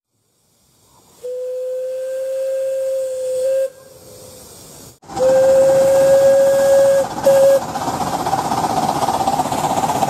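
Steam whistle of a small steam locomotive: one long steady blast, then after a cut a louder long blast and a short toot. Steam hissing follows the toot.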